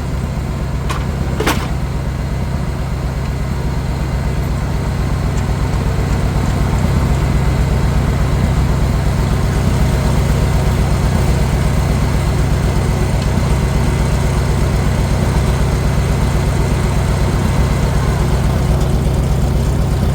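Farmall 400 tractor's four-cylinder engine running steadily with an even, rapid firing pulse, getting a little louder about seven seconds in. A single sharp click sounds about a second and a half in.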